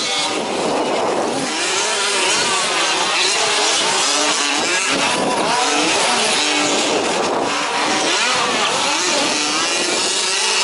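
Several 1/5-scale RC off-road trucks' small two-stroke petrol engines racing together, their overlapping pitches rising and falling as they rev up and back off around the track.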